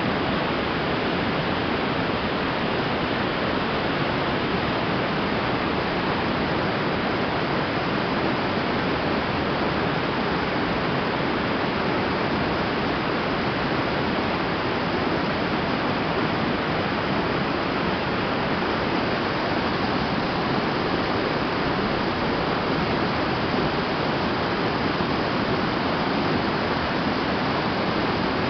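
Steady rush of a small waterfall, river water pouring over a rock ledge, with no change in level throughout.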